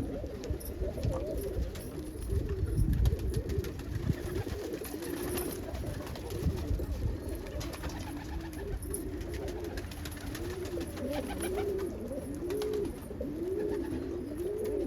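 Domestic pigeons cooing, several at once: overlapping rising-and-falling coos that settle into a regular run of repeated coos in the second half, with scattered light clicks.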